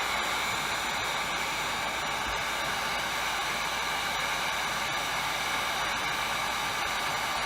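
Steady blowing hiss of an electric hot-air blower running without change, with a few faint steady tones in it.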